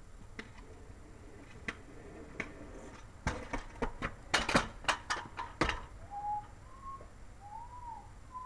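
Aluminium Razor kick scooter clattering close by: a quick run of sharp metallic clacks and knocks as it comes up and is handled, after a few lighter clicks of the wheels rolling over the concrete joints. In the last couple of seconds come several short whistle-like tones that rise and fall.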